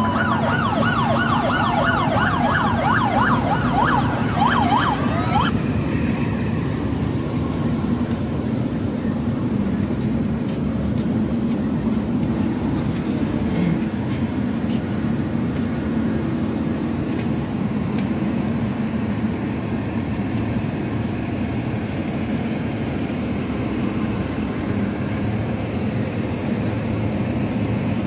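Emergency vehicle siren on a fast yelp, about three or four sweeps a second, which stops about five seconds in. Under it a steady low engine rumble carries on throughout.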